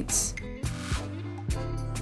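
Quiet background music with steady low notes, and a brief hiss about half a second in.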